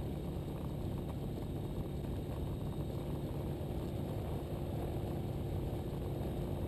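Ikarus C42 microlight's engine running steadily at low power while taxiing, heard through the headset intercom as an even hum with hiss.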